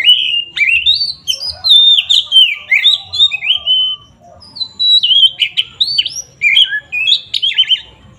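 An Oriental magpie-robin (kacer) sings loudly in rapid runs of clear whistled notes, many sliding downward. There are two dense bursts with a short break about four seconds in.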